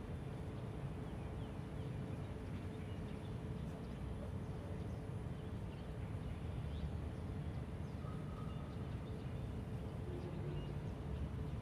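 Steady outdoor background noise: a low rumble with a faint steady hum and a few faint, short high chirps.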